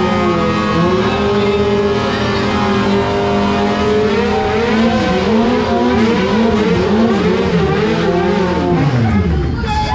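Motorcycle engine held at high revs through a tyre-smoking burnout, the revs swinging up and down over and over, then dropping away near the end.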